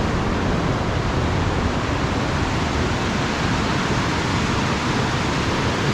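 Mountain creek rushing over boulders: a steady, loud rush of white water.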